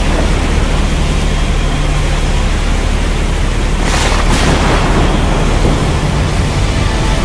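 Steady rushing storm-like noise with a low rumble beneath, a sound-effect bed of wind, rain or surf; a brief louder rush comes about four seconds in.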